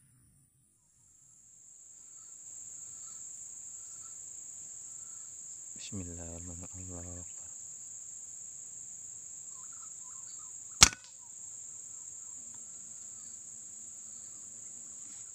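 A steady high-pitched drone of forest insects, with a short low two-part hum about six seconds in. Near eleven seconds there is one sharp crack of an air rifle shot fired at a green pigeon, the loudest sound here.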